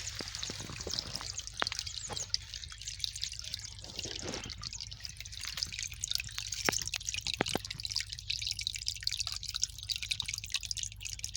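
Small flowing water trickling and dripping, with many quick irregular plinks of droplets over a steady splashing hiss.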